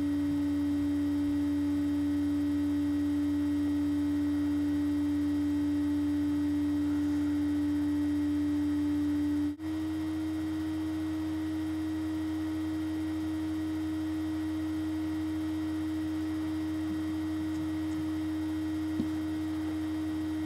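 Steady electrical hum with a pure tone above it. After a brief dropout about ten seconds in, the tone steps up slightly in pitch and holds there, and there is one faint tick near the end.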